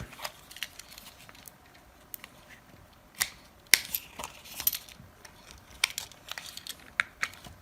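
Scattered small clicks and taps of a Nokia 6150's circuit boards and plastic housing parts being handled and fitted together, with a handful of sharper clicks spread through.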